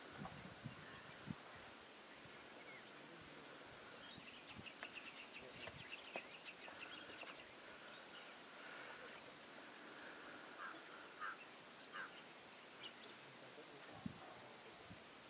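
Faint insect and bird ambience of scrub forest: a steady high insect trill, a second pulsing trill from about four to seven seconds in, and a few short bird chirps in the second half, with occasional faint knocks.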